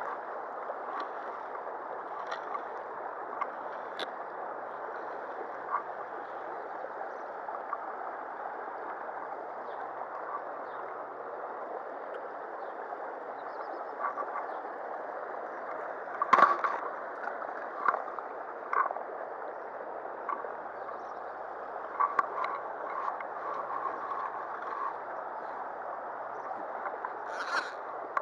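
Shallow stony river running in a steady rush over a riffle, with a few short knocks and clicks from handling, the loudest about halfway through.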